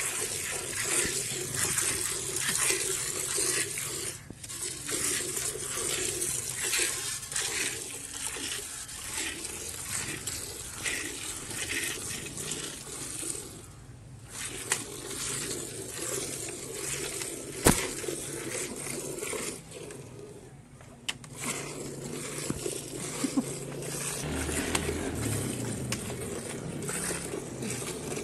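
Milk squirting from a cow's teats into a partly filled steel pail during hand milking: a frothy hiss of quick, repeated squirts. It breaks off briefly a few times, and there is one sharp click a little past halfway.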